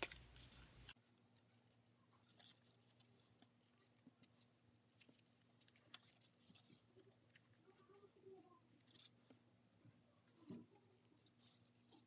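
Near silence, with faint scattered crinkles and taps of origami paper being folded and creased by hand.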